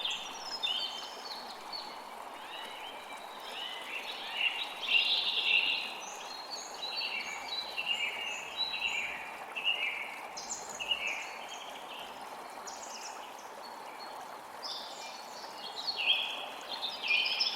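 Several songbirds chirping and singing in many short, overlapping phrases, busiest about five seconds in and again near the end, over a steady background rush.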